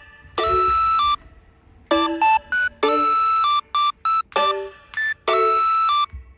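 Background music: a bright electronic melody of short, clipped notes in a repeating phrase.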